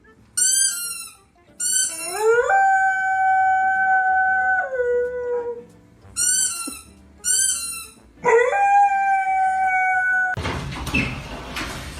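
A dog yipping in short, high, falling cries, then howling twice. Each howl rises, holds a steady pitch and drops away. For the last second or so a broad rustling noise takes over.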